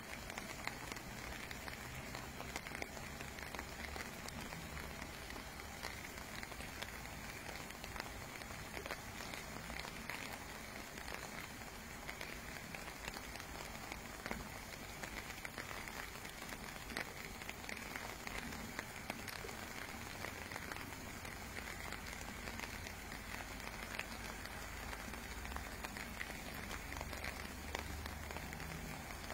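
Steady rain falling on a lake surface: an even hiss made of many small drop ticks. Low wind rumble comes in near the start and again near the end.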